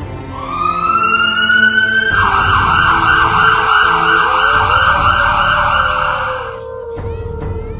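Ambulance siren winding up in a rising wail for about two seconds, then switching to a rapid warble that cuts off sharply about a second before the end, over background music.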